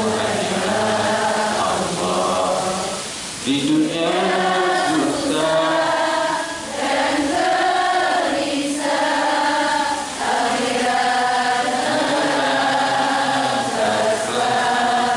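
A man singing an Islamic devotional song in Indonesian into a microphone, in slow phrases of long held, wavering notes with a short breath every three or four seconds.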